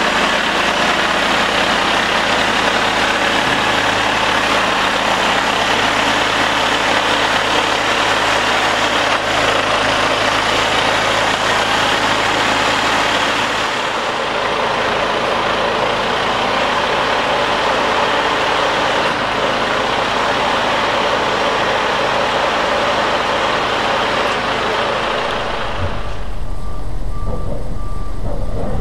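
Heavy-haul truck's diesel engine running close by as the low-loader transport moves past, a steady engine rumble under a dense hiss. Near the end the sound changes abruptly to a lower rumble with a repeating beep.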